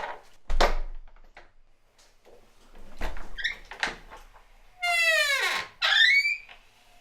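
Squeaky wooden door creaking on its hinges as it is swung. Short squeaks near the start and about three seconds in, each with a low thud, then a long drawn-out creak falling in pitch about five seconds in and a shorter creak just after.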